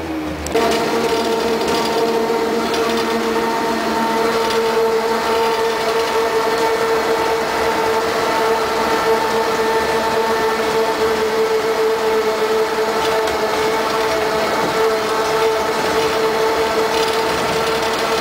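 Škoda 14Tr trolleybus heard from inside the cabin: its electric traction equipment sets up a steady whine of several fixed high tones, switching on abruptly about half a second in and holding over the running noise of the vehicle.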